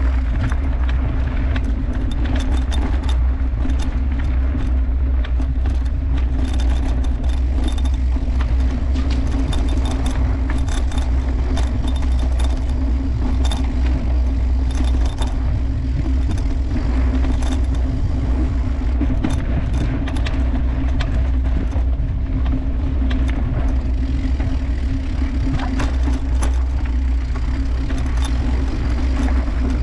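A mountain bike ridden over singletrack: a steady low rumble from the riding, with frequent rattling and clicking from the bike over the bumps.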